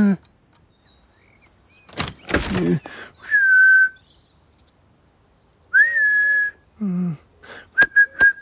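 A man whistles to call his cat, two short steady notes a couple of seconds apart, then a few quick whistled pips with sharp clicks near the end. Short grunting voice sounds come before the first whistle and between the whistles.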